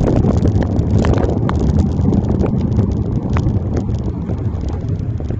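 Wind buffeting a handlebar-mounted phone's microphone while cycling in heavy rain, a loud steady rumble with scattered sharp ticks of raindrops striking the phone.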